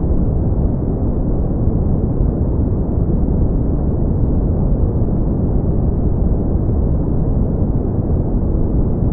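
Brown noise: a steady, deep rumbling hiss with most of its energy low down and nothing above the upper mids.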